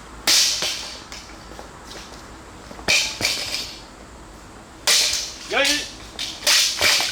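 A woldo (Korean long-handled crescent-moon glaive) swung with a real blade, slicing through cutting targets in a run of sharp swishing cuts, about five of them. Each cut is a sudden hiss that dies away quickly.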